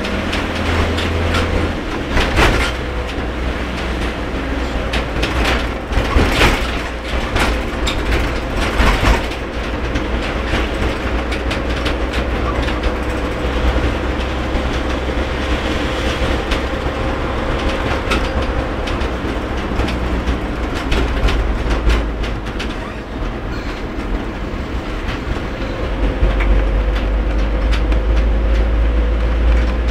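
A car driving in heavy rain, heard from inside the cabin: a steady low road and engine rumble under the hiss of rain and spray, with scattered sharp splashes and knocks, most of them in the first ten seconds.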